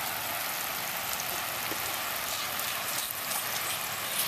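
Water spraying from a slip-and-slide's sprinkler jet, a steady hiss and patter on the wet plastic sheet and grass.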